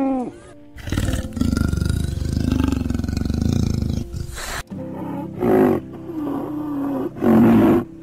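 A camel's long, low, gurgling grumble, then, after a cut about four and a half seconds in, a leopard giving three rasping calls. Soft background music runs underneath.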